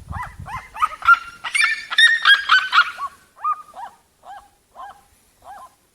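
Birds calling: a short rising-and-falling call repeated about twice a second, swelling into a burst of several birds calling over each other from about one and a half to three seconds in, then thinning to single calls that stop shortly before the end.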